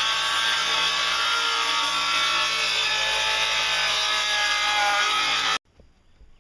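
Jigsaw cutting through a wooden board, its blade making a loud, steady buzz that stops suddenly near the end.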